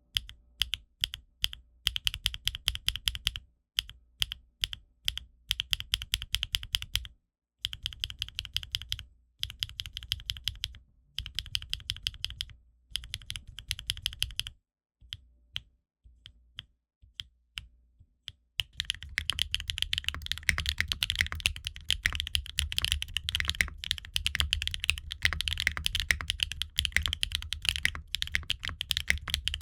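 Typing on a gasket-mounted, foamless aluminium-case 65% mechanical keyboard (Qwertykeys Neo65 Core Plus) with HMX Meteor linear switches and ABS double-shot Cherry-profile keycaps. It comes in short bursts of keystrokes separated by brief pauses, then turns to continuous fast typing about 18 seconds in.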